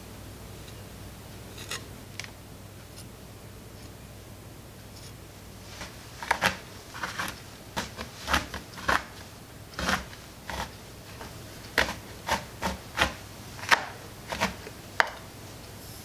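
Chef's knife chopping dark chocolate on a cutting board: about twenty sharp, irregular chops, roughly two a second, starting about six seconds in.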